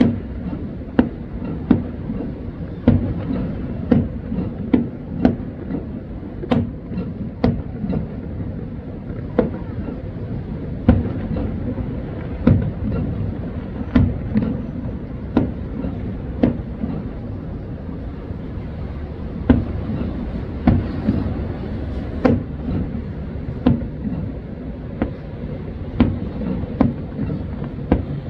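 Aerial firework shells bursting at a distance, a sharp bang roughly every second at uneven spacing, over a steady low rumble.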